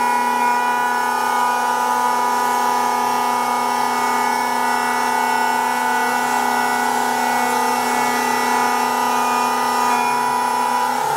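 A CNC router spindle whining steadily as it mills a side plate from 18 mm board. It is a constant sound made of several steady tones.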